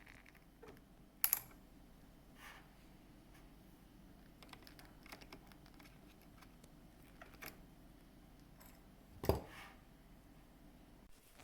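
Scattered light clicks and knocks of plastic parts and tools being handled on an opened bean-to-cup coffee machine, with two sharper knocks, one about a second in and a heavier thud near the end.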